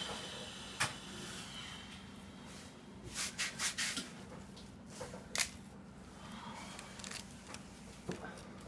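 Scattered handling clicks and rustles, with a quick cluster of them between about three and four seconds in, over a faint steady low hum.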